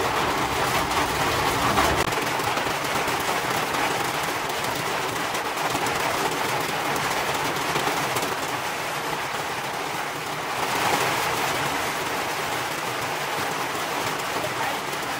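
Steady rain falling, an even hiss that swells briefly about ten seconds in.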